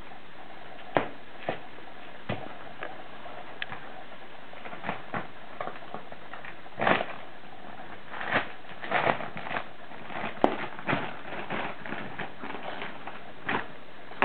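Scattered soft knocks, taps and rustles, irregular and sometimes in quick clusters, from a toddler stepping about in and climbing out of a fabric children's play tent, over a steady background hiss.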